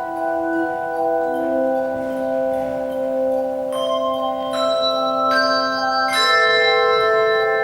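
Handbell choir playing an Irish medley: several bells sound together in chords, each note ringing on long after it is struck. Fresh notes come in about once a second during the second half, adding higher pitches over the sustained lower ones.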